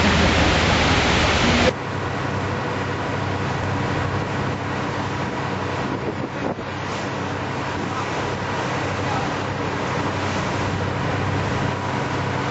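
A waterfall pours loudly up close. A little under two seconds in the sound cuts off abruptly to a quieter scene: a boat's engine hums steadily under wind on the microphone and water noise.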